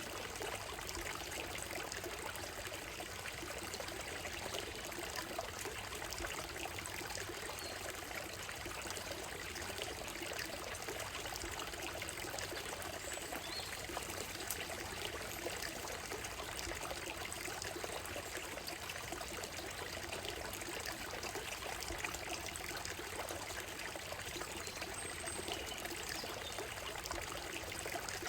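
Small woodland stream running steadily over a gravel and stone bed, a continuous trickling flow.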